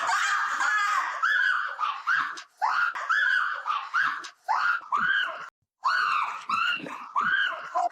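Repeated high-pitched screaming cries, about two a second, each rising then falling in pitch, with a brief break about two-thirds of the way through.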